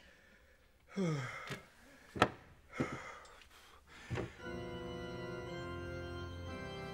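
Church organ playing held chords, coming in about four seconds in and changing chord a couple of times. Before it there are a few short voice sounds and one sharp knock.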